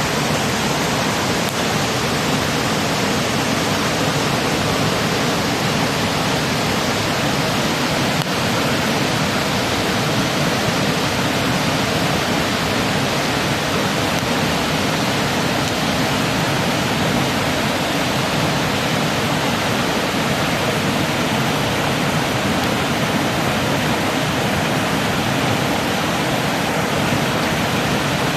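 Steady, unbroken rushing of running water, like a mountain stream flowing close by.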